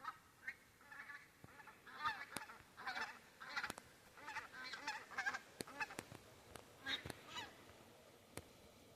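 A skein of geese flying over, calling in a continual chorus of honks that thins out near the end, with a few faint sharp clicks among the calls.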